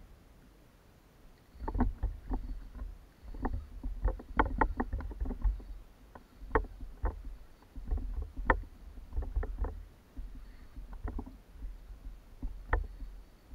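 Irregular small knocks and clicks of handling on a plastic fishing kayak as the rod and reel are worked, over a low rumble. The knocks come in loose clusters after a quiet first second or so.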